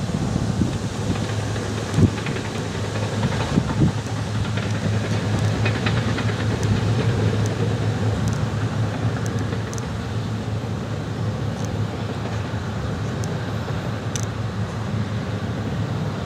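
John Deere four-wheel-drive tractor's diesel engine running steadily as it pulls an earth scraper through dirt, with a few sharp knocks in the first four seconds.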